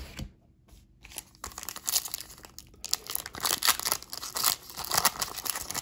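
Foil wrapper of a Panini Prizm basketball card pack crinkling as it is handled and torn open, a dense irregular rustle starting about a second and a half in.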